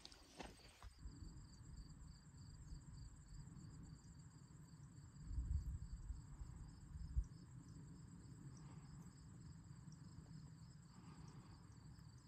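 Faint crickets chirping in a steady, pulsing chorus. A few footsteps sound at the start, and a brief low rumble comes about five seconds in.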